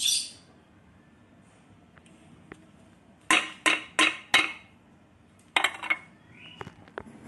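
Handling noise from the metal-bodied Ebmpapst 6318/19HP fan: four quick hard knocks about a third of a second apart near the middle, then a short clatter and a few lighter clicks as it is set down on a tiled floor.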